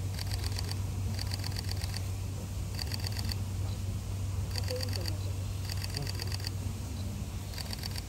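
Six short bursts of rapid clicking, each about half a second long, over a steady low hum.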